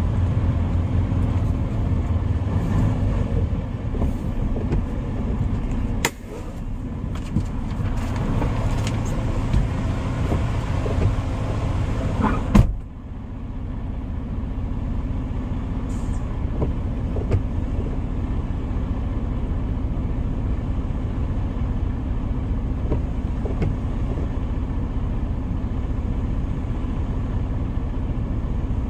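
Semi-truck diesel engine heard from inside the cab, running as the truck rolls slowly forward, then idling steadily once it stops. About halfway through there is one brief, sharp, loud sound as the truck comes to a stop.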